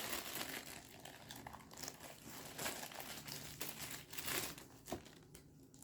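Packaging being handled while a humidifier box is unpacked: crinkling and rustling in irregular spurts, with a few sharper crackles.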